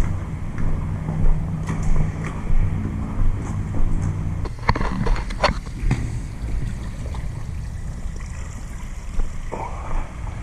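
Footsteps and movement in a concrete stormwater drain tunnel over a steady low rumble, with a cluster of sharper knocks about halfway through.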